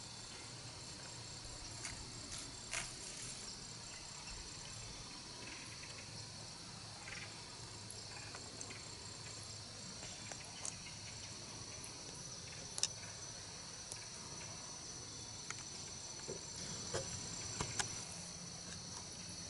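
Steady, high-pitched chorus of crickets and other insects, with a few scattered light ticks and rustles, the sharpest about two-thirds of the way through.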